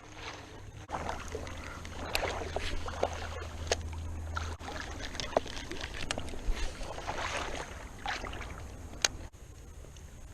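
Creek water splashing and sloshing in irregular bursts as someone wades through it, with a few sharp clicks.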